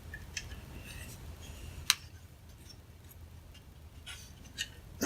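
Faint handling noises from a graphics card being turned over in the hand: small scattered clicks and light rubbing, with one sharper click about two seconds in.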